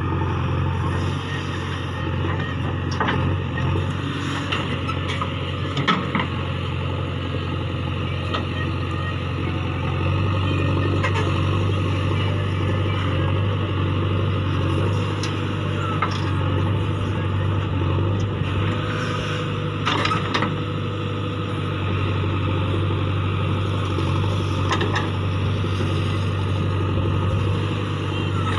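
JCB 3DX backhoe loader's diesel engine running steadily under hydraulic load as the backhoe digs and swings loads of soil, growing louder about ten seconds in. A few sharp metal clanks from the arm and bucket.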